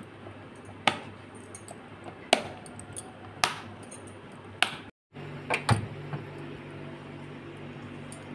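Clip-lock plastic food container lid being snapped shut: four sharp clicks, about a second apart, as the locking flaps are pressed down. After that come a few knocks and a steady low hum from the refrigerator as its freezer compartment is opened.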